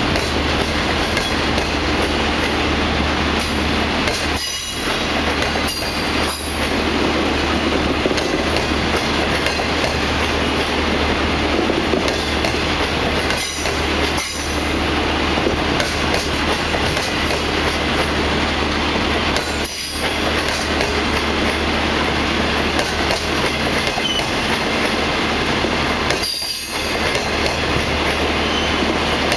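25K passenger coaches of a departing train rolling past a station platform, with a steady rumble of wheels on rail and a constant low hum. Brief high wheel squeals come several times.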